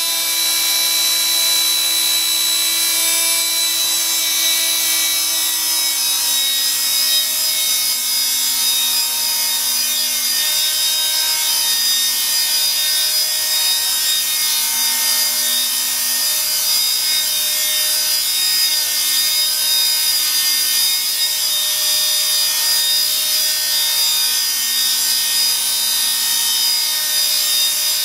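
Nine-Eagles Solo Pro 319 Black Hawk micro RC helicopter's electric motor and rotors whining steadily as it lifts off and hovers, the pitch shifting slightly now and then.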